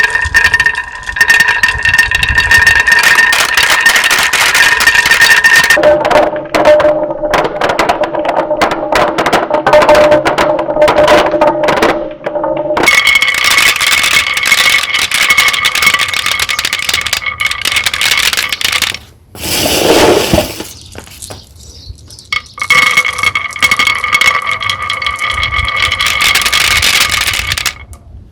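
Marbles clattering and rattling as they roll down a wooden marble run, over background music with long held notes that change pitch every several seconds.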